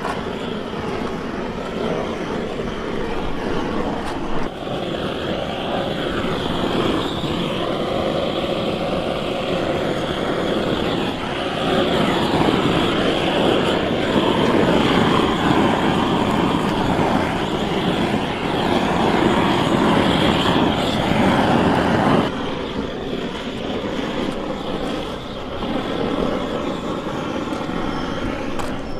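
Handheld butane torch on a gas canister, its flame running with a steady roaring hiss and growing louder for about ten seconds in the middle.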